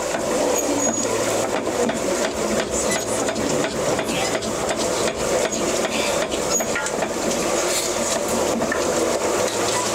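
Wooden spoon scraping and knocking against a cast-iron pot as thick, stiff polenta is stirred hard, a dense run of small knocks and rubbing.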